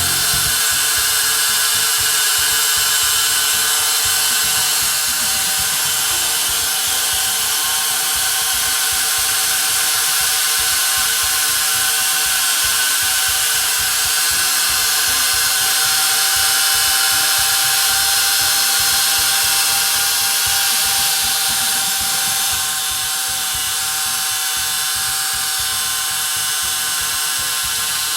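Reciprocating saw with a DEWALT 2X metal-cutting blade cutting through steel: a steady, high-pitched grinding whine that eases slightly about 22 seconds in.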